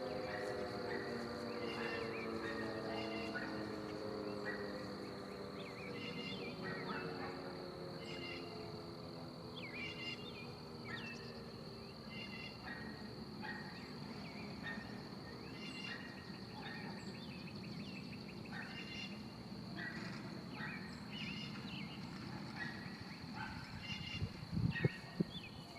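Sentry 10V outdoor warning siren winding down after a very short alert, its pitch falling as it fades over the first several seconds. Birds chirp over a steady high insect drone, with a few low bumps near the end.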